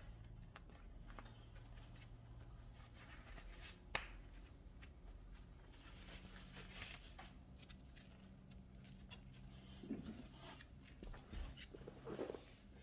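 Faint scattered crackles and clicks, with one sharper snap about four seconds in and a few soft rustles near the end, over a low steady hum.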